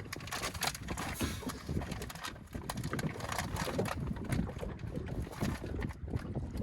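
Wind buffeting the microphone and water slapping against a small aluminium boat's hull, with irregular small knocks throughout.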